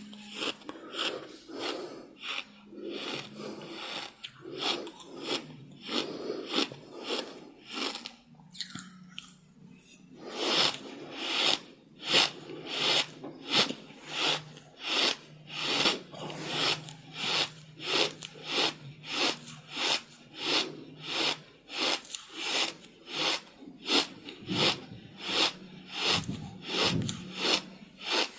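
Heavy, rapid breathing in an even rhythm, about two breath sounds a second.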